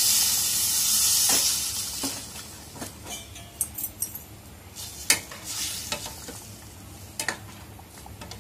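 Hot water poured into a steel pan of frying curry masala, hissing loudly for about the first second and a half. Then a steel spoon stirs the gravy, clinking against the pan a few times.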